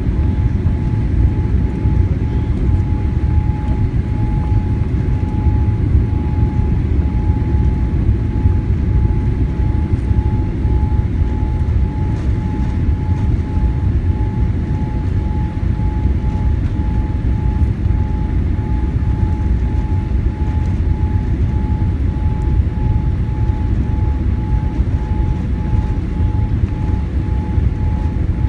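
Boeing 787 cabin noise on approach: a steady low rumble of engines and airflow heard from a window seat, with a constant high hum on top.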